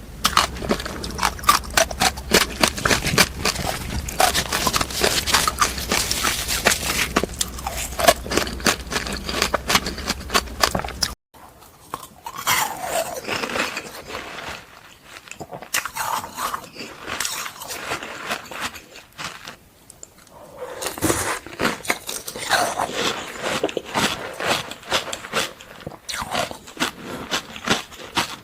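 Close-miked crunching and chewing of frozen fruit: dense, rapid crunches, then after an abrupt cut about eleven seconds in, quieter, sparser chewing and mouth sounds.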